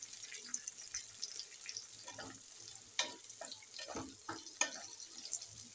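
Sliced onions frying in oil in a kadhai with a light sizzle, stirred with a wooden spatula that scrapes and knocks against the pan several times around the middle. The onions are being fried until they brown.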